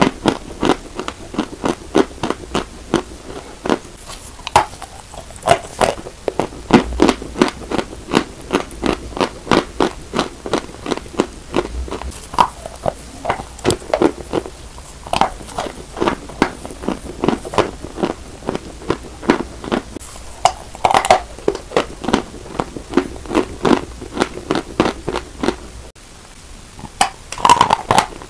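Close-up crunching of chunks of white chalk being bitten and chewed: a quick run of crisp crunches, about three a second, with some louder bites among them.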